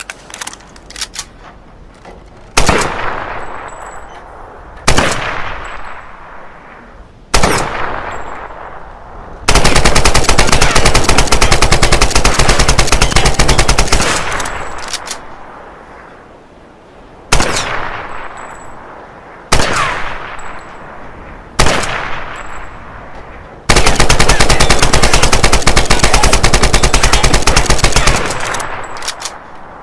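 AK-47 assault rifle firing: after a few light clicks, three single shots a couple of seconds apart, each with a long echoing tail, then a sustained automatic burst of about four and a half seconds. Three more single shots follow, then a second long automatic burst near the end.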